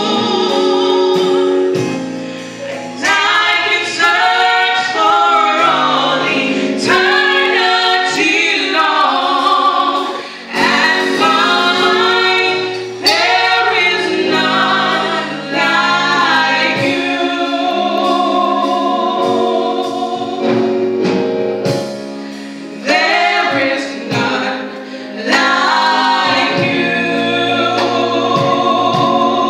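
Three women singing a gospel song into microphones, with several long held notes.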